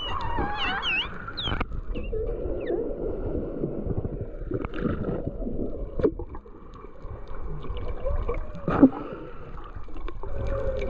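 Humpback whale song heard underwater: wavering calls that glide up and down, plainest in the first second and a half and fainter later, over a low rush of water. A single sharp knock stands out about nine seconds in.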